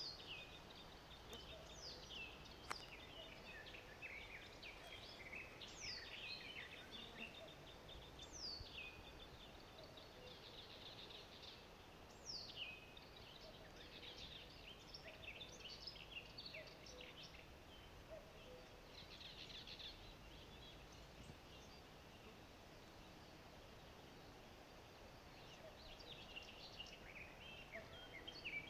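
Several songbirds singing and calling, faint: a few quick high calls that sweep sharply down in pitch, with busy twittering and chirps between them.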